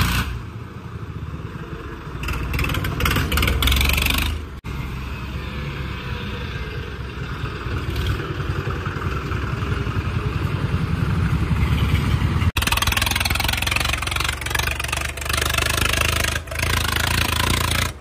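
Diesel tractor engines running as the tractors drive along, a steady low rumble that gets louder and harsher twice, and drops out briefly twice.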